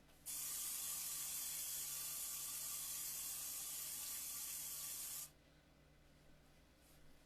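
Cooking spray hissing onto an air fryer tray in one steady, unbroken spray of about five seconds, followed by a sharp clink right at the end.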